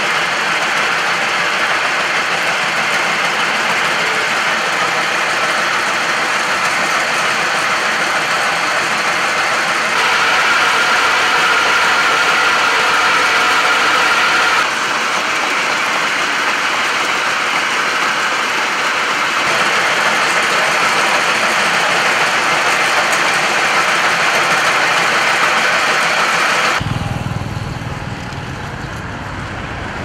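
Motorized mincing machines running steadily as they grind fish into paste, a continuous mechanical whirr that changes abruptly in level several times. Near the end it gives way to a quieter, lower rumble.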